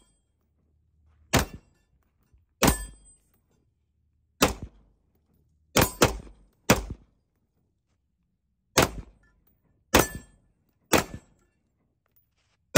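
AR-15-style short-barrelled rifle fired without a suppressor: about nine single shots at an unhurried, irregular pace, two of them in quick succession about six seconds in.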